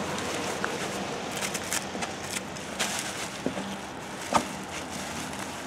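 Plastic packing wrap crinkling as it is pulled off and bunched up by hand, with scattered sharp crackles over a steady low hum.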